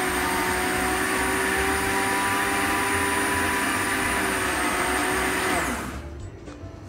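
Russell Hobbs Desire blender running steadily, blitzing a tahini sauce thinned with water. Near the end it is switched off, and the motor's pitch falls as it winds down and stops.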